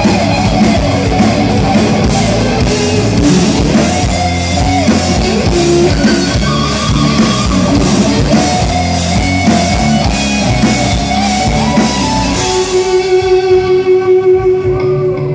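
Live rock band playing an instrumental passage on electric guitars, bass guitar and drum kit. About twelve seconds in the drums drop out, leaving a single held note that pulses quickly in loudness.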